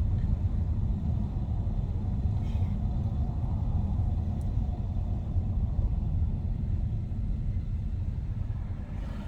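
Steady low rumble of a car moving along the road, heard from inside the cabin.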